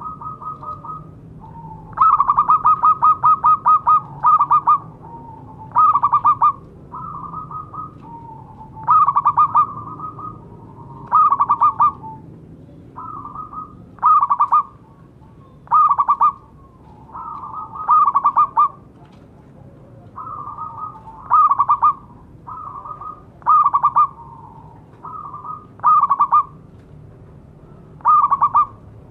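Zebra dove (perkutut) cooing: a phrase of quick staccato notes running into longer coos, repeated about every two seconds. Shorter, quieter single coos fall between the phrases.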